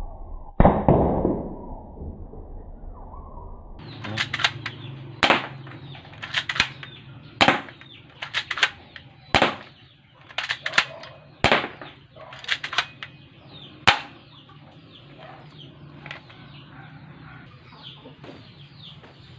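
Spring-type airsoft pistol being fired again and again at a cardboard target: a run of about fifteen sharp snaps over ten seconds, some in quick pairs, after a single heavier thump about half a second in.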